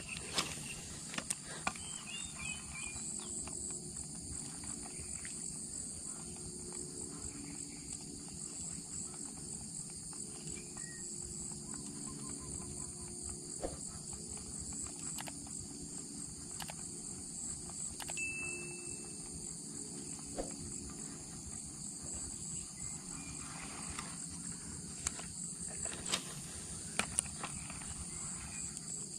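Steady chorus of insects: several high, even trills sound at once without a break, one of them finely pulsed. A few faint clicks are scattered through.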